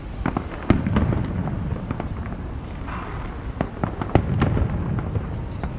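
Fireworks going off: a run of sharp cracks and pops, with two louder booms about a second in and again past the four-second mark.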